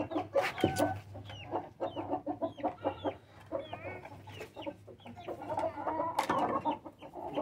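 Backyard chickens clucking, with a steady run of short, high chirps about two or three a second.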